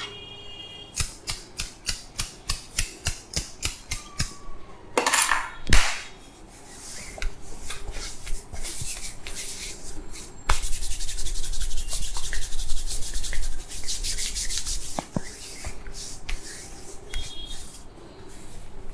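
Hands rubbing and tapping on a person's head and skin in a massage. A run of rhythmic strokes about three a second gives way to irregular rubbing, with a louder stretch of fast rubbing strokes in the middle.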